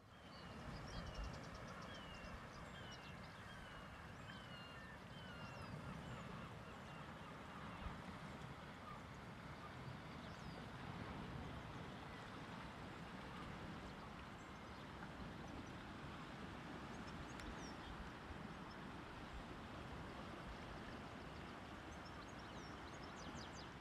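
Faint outdoor ambience on a rocky shore: a steady low hiss with birds calling, a quick run of about seven short falling calls in the first five seconds and scattered high chirps later.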